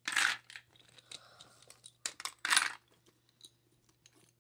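Small craft supplies (crayons, coloured pencils, plastic containers) being handled and moved around a woven plastic storage basket. Two short scraping rustles come about two seconds apart, with light clicks and taps between them.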